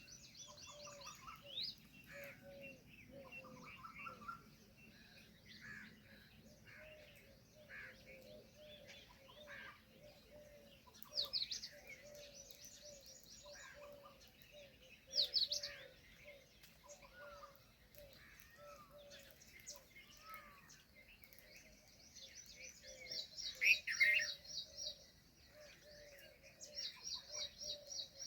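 Several wild birds calling together: a low note repeated steadily over and over, under assorted short calls and bouts of rapid, high trilled calls, the loudest burst coming about four-fifths of the way through.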